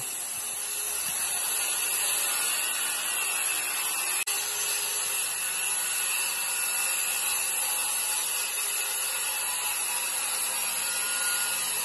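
Corded circular saw running steadily as its blade cuts through a mobile home's floor, cutting out a section of water-damaged, soft flooring. There is a momentary break in the sound about four seconds in.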